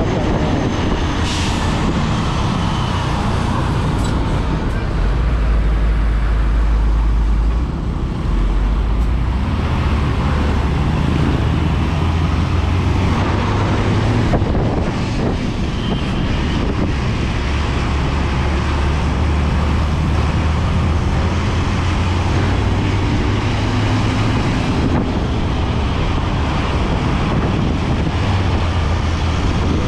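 Bus under way: steady low engine rumble and road noise, the engine note growing deeper and stronger for a few seconds about five seconds in.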